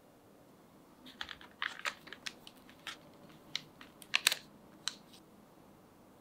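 A run of light, irregular clicks and taps from handling things at the kitchen counter. It starts about a second in and stops near five seconds, with the loudest taps a little after four seconds.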